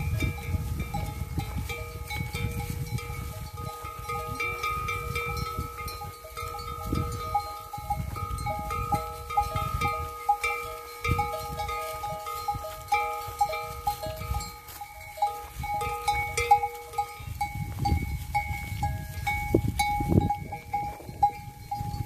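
Bells on a large goat herd clinking and ringing continuously as the goats move and graze, many small strikes at a few fixed pitches overlapping. A low, uneven rumble runs underneath.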